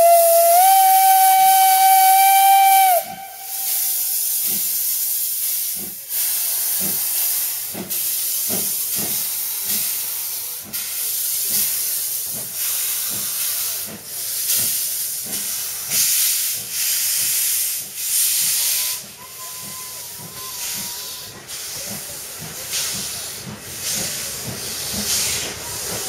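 Whistle of the 1917 Floridsdorf-built MÁV 109 steam locomotive, held for about three seconds and then cut off. The locomotive then works away with a regular beat of exhaust chuffs and hissing steam.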